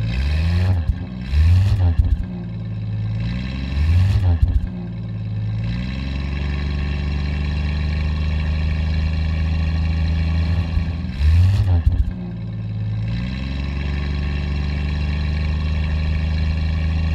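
1937 Studebaker Coupe Express's straight-six engine idling steadily. It is revved briefly three times, about a second in, about four seconds in and about eleven seconds in, rising and dropping straight back to idle each time.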